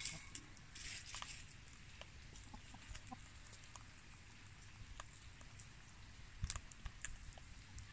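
Chickens clucking quietly in short bursts: at the start, about a second in, and again near the end, with scattered small clicks in between.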